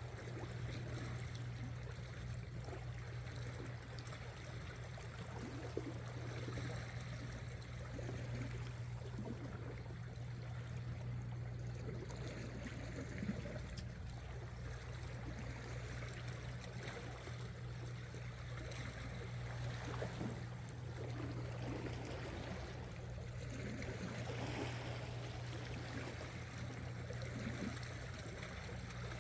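Sea water lapping and trickling among shore rocks, with small irregular splashes, over a steady low hum.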